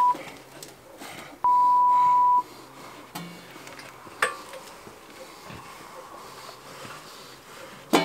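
An editor's 1 kHz censor bleep: a steady pure tone lasting about a second, starting about a second and a half in, over faint background sound. A single sharp click follows about four seconds in.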